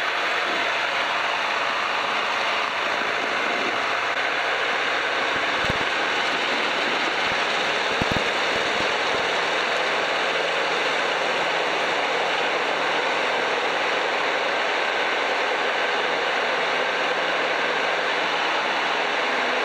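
Steady rush of wind and engine-and-propeller noise from a Piper PA-12 Super Cruiser in flight, picked up by a camera mounted outside on the wing strut. Two brief low thumps come about 6 and 8 seconds in.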